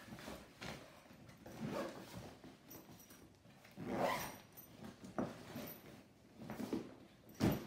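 Handling of a nylon kit bag: fabric rustling and a zip being pulled in short strokes, with a sharp knock near the end, the loudest sound.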